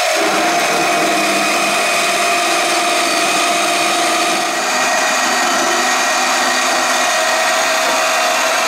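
Harbor Freight 10-amp portable band saw running at a steady whine while its Milwaukee metal-cutting blade saws through quarter-inch steel flat stock held in a vise. The blade has fewer teeth than the saw recommends. The rasping of the cut joins the motor sound right at the start and goes on steadily.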